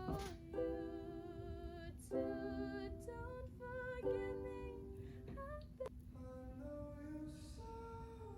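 Music: a solo singing voice holding long notes with vibrato, without clear words, with a few short struck accents.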